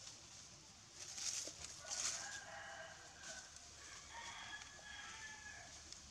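A rooster crowing, a long call of several bending pitched tones running about four seconds, from about two seconds in. Two short rustles come just before it and are the loudest sounds.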